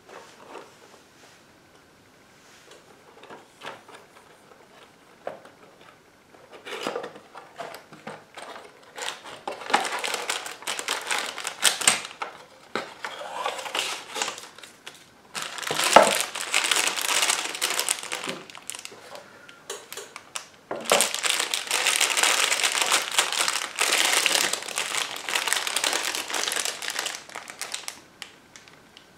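Paper instruction sheet, cardboard box and a clear plastic bag of toy building bricks crinkling and rustling as they are handled, in uneven stretches that grow louder, with one sharp knock about halfway through.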